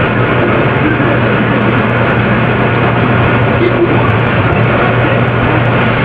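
Loud, steady low drone with a dense, even wash of noise over it, unchanging and without breaks.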